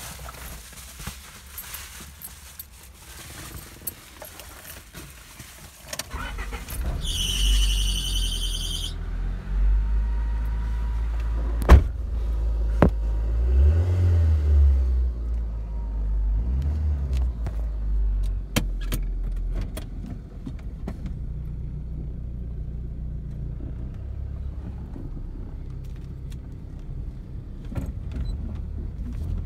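Keys jingling, then a Honda car's engine starting about six seconds in, with a high-pitched whining noise for about two seconds just after it catches; the engine runs loudly with a few sharp clicks, then settles to a steadier, quieter idle. The noise on start-up is new since the car's wheel alignment, and its cause is unknown.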